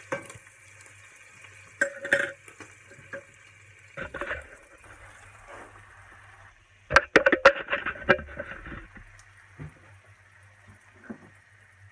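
Beef chunks sizzling faintly in oil in a frying pan, with clicks and knocks of a utensil against the pan and plate as browned pieces are lifted out. The loudest clatter, several quick knocks, comes about seven seconds in.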